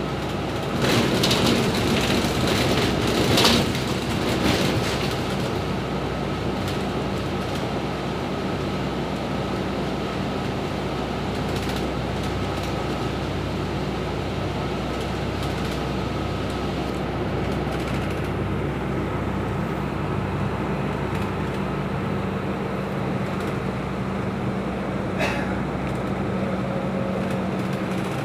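Interior noise of a moving city bus: engine and road noise running steadily with a constant hum, louder for a few seconds near the start.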